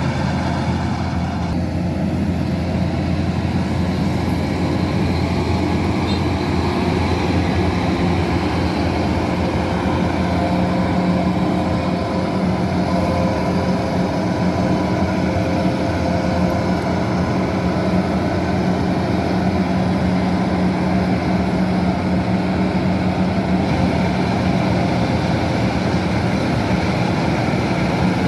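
Kubota DC-108X combine harvester's diesel engine running steadily under load, with a constant drone and no change in pitch.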